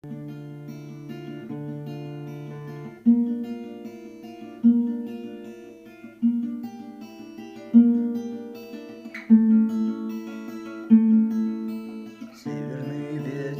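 Acoustic guitar playing the slow instrumental intro of a song. One chord is held for about three seconds, then a new chord is struck about every second and a half, each ringing out and fading.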